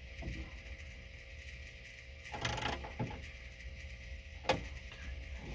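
Small mechanical handling sounds from fitting a headlight switch into a car dash: a short scraping rustle about halfway through and a few light clicks, over a steady low hum.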